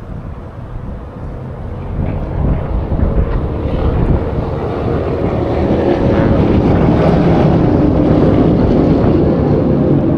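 A motorboat's engine running as the boat passes, growing louder a couple of seconds in and staying loud, with wind buffeting the microphone.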